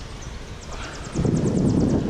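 Wind buffeting the microphone, rumbling and getting louder about a second in, over the rush of a shallow riffled stream, with a quick run of faint high ticks in the second half.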